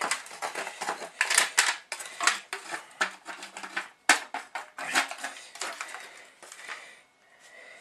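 A metal fork scraping and clinking against an aluminium foil takeaway tray, a quick irregular run of scrapes and taps with one sharp knock about four seconds in, dying away about a second before the end.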